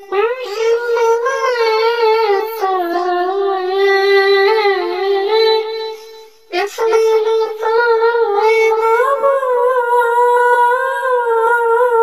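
A high-pitched voice singing a sholawat (Islamic devotional song) melody without accompaniment, in long, ornamented notes that waver up and down. It breaks off briefly about six seconds in and then resumes.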